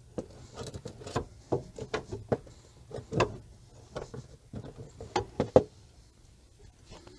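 Brake caliper being handled and fitted over the pads on a car's front brake: a series of sharp, irregular knocks and clicks, the loudest about five and a half seconds in, then it goes quiet.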